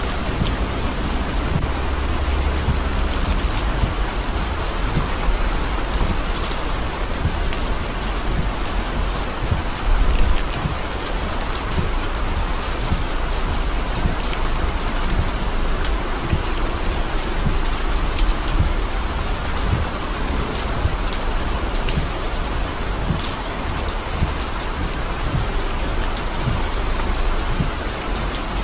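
Heavy rain falling steadily, with many sharp drop ticks through it. A brief, louder low rumble comes about ten seconds in.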